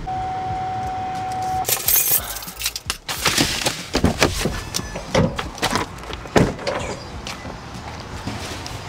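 A steady electronic beep for about a second and a half, then a run of clicks, knocks and crackling rustles: a pickup truck's door being worked and a stack of stiff vinyl window banners being pulled out and handled.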